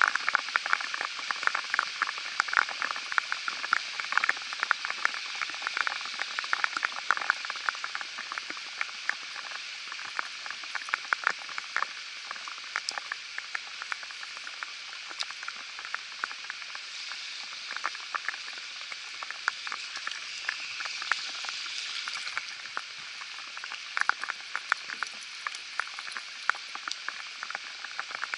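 Rain falling: many irregular sharp ticks of drops striking close to the microphone over a steady hiss of rain, the ticks thinning out for a while midway.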